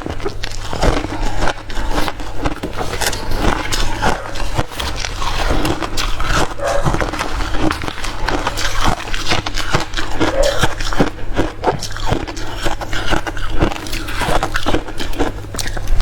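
Hard crushed ice being bitten and chewed close to the microphone: dense, irregular crunching and crackling.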